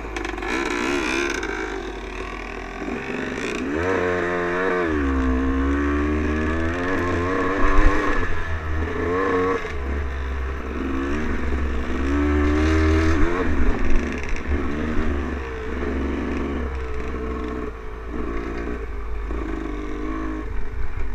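Dirt bike engine revving and running under way, its pitch rising and falling several times as the throttle opens and closes. A few sharp clatters stand out near the middle.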